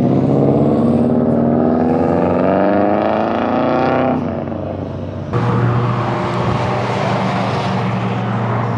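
Car engine accelerating hard, its pitch rising steadily for about four seconds before easing off. From about five seconds in, a sudden louder, steady engine note takes over.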